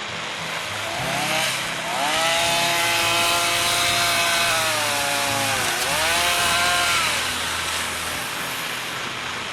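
Chainsaw at high revs cutting through a tree branch. Its whine sags in pitch as the chain bogs in the wood, recovers, then falls away near the end. A lower engine drone idles steadily underneath.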